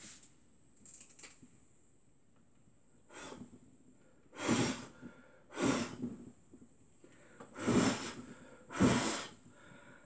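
A Nokia mobile phone burning inside a running microwave oven: five short rushing bursts, a second or so apart, as the fire flares and gas spurts out of the melting phone, the last few loudest.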